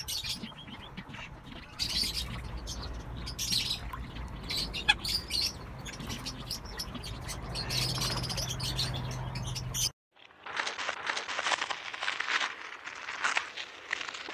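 Birds chirping and calling in short high notes over a low steady hum. After a brief break about ten seconds in, a denser, busier high chatter follows.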